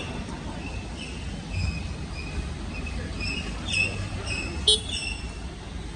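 Wet street ambience: a steady low traffic rumble, with a short high chirp repeating about twice a second and one sharp knock near the end.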